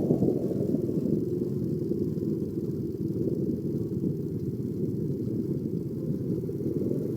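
Steady low rumbling noise of a vehicle on the move, with no distinct tones or knocks.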